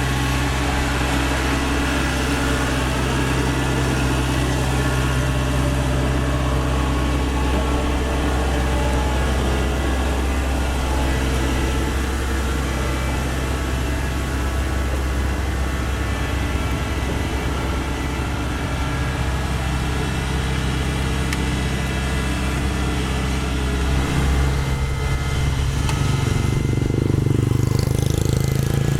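Kubota DC-70 rice combine harvester's diesel engine running steadily under way. About 24 seconds in it gets a little louder and its note changes.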